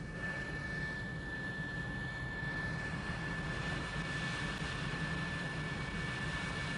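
Jet engines of a McDonnell F-4 Phantom II running on the ground: a steady high whine over a low rumble, growing slightly louder in the first moments and then holding steady.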